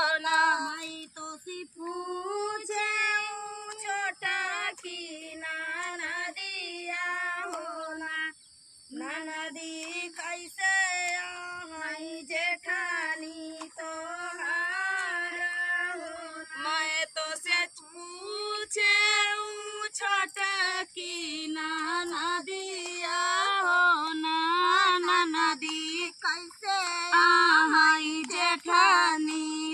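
A woman singing a rustic North Indian folk song in short winding melodic phrases, with a brief pause for breath about eight seconds in.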